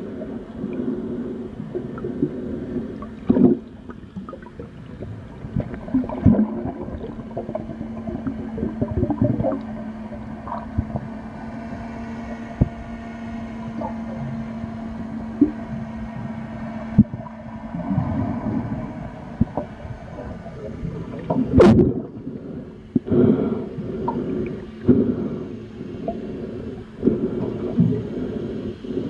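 Underwater sound beside a boat's stern: water gurgling and sloshing against the camera, with irregular knocks and one sharp click near the end. A steady low hum runs through the middle for about ten seconds.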